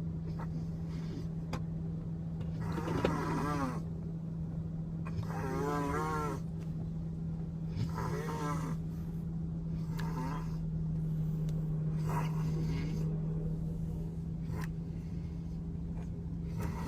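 A woman snoring heavily, about seven snores at intervals of two to three seconds, each with a pitched, wavering tone, over the steady low hum of a car in motion.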